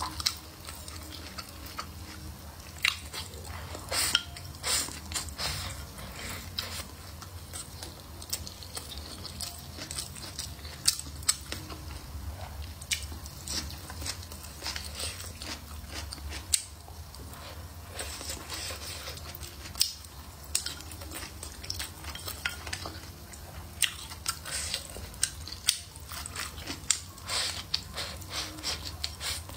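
Close-up eating sounds: chewing and biting mouthfuls of rice and green peppers, with frequent short, irregular clicks of wooden chopsticks against a ceramic bowl.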